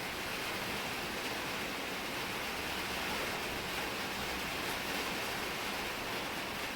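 Steady hiss of heavy rain falling on a shed roof.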